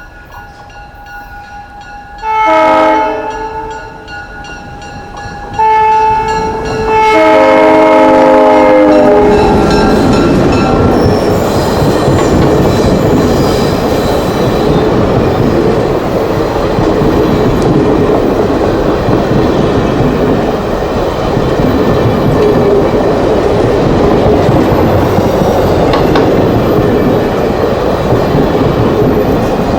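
Cuyahoga Valley Scenic Railroad train sounding its multi-tone horn, a short blast and then a longer one whose chord shifts partway through. The train then runs past loudly with the steady rumble of rolling wheels.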